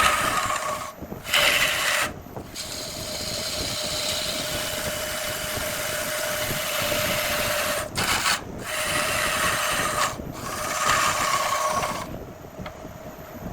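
Wood lathe running with a steady motor hum while a tool scrapes against the spinning jackfruit wood, a loud hissing rasp broken by several brief gaps. About twelve seconds in the scraping stops and only the lathe's hum goes on.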